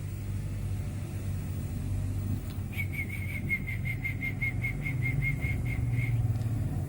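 A songbird calling a fast, even run of about seventeen short, high notes at one pitch, some five a second, starting about three seconds in and stopping about three seconds later, over a steady low rumble.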